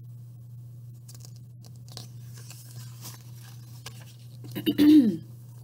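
Paper rustling and crackling softly as a picture book's page is turned by hand. Near the end comes a short, louder vocal sound with a falling pitch, all over a steady low hum.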